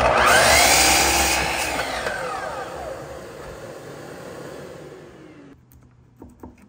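Festool miter saw cutting a small block of wood, loudest right at the start, then the blade whines down as it coasts and stops about five and a half seconds in. A few light wooden knocks follow near the end.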